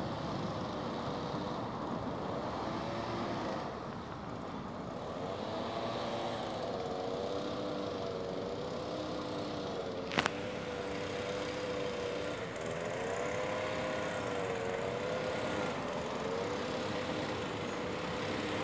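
Steady background road traffic, with a wavering droning tone running under it for most of the time and one sharp click about ten seconds in.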